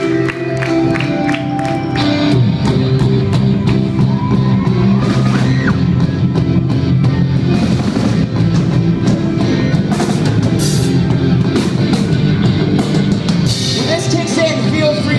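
Live rock band playing loudly: electric guitars, bass and drums, with a singer's voice at times. Evenly spaced drum hits over held chords at first, then the full band comes in harder about two seconds in.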